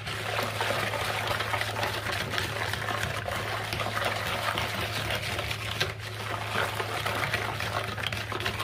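Hand whisk beating milk, water and sugar in a bowl, a steady rapid sloshing that dissolves the sugar.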